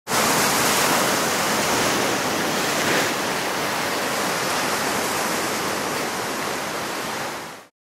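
Sea surf breaking and washing over a rocky shore: a steady, loud rush of water that starts abruptly and cuts off suddenly near the end.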